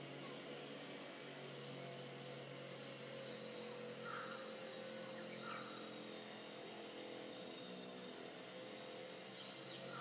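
Faint, steady drone of a distant engine, made of several even pitches. Two short bird calls come about four and five and a half seconds in, and another near the end.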